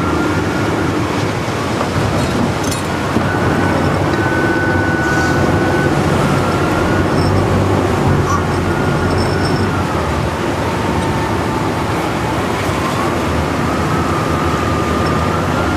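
Pilot boat's engine running steadily under a constant rush of wind and rough sea, with a faint high whistle that wavers slowly in pitch.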